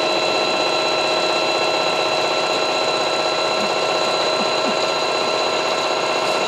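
Singer electric sewing machine running steadily at speed, sewing a domino stitch: an even motor whine with the needle mechanism cycling.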